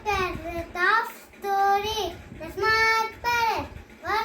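A young child's voice in slow, drawn-out sing-song phrases, several notes held steady, with short pauses between them.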